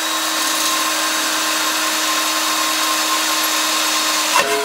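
Hand-held electric drill running at a steady speed, its bit boring a drainage hole through a sheet-metal basket. The motor cuts off near the end and winds down.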